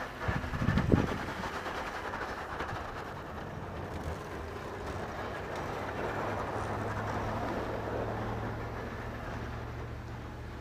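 Chevrolet Silverado 2500HD pickup plowing snow with a Western MVP3 stainless V-plow: the engine working steadily under load under the hiss of snow pushed off the blade, louder as the truck passes close and fading as it moves away. A short burst of loud knocks about a second in.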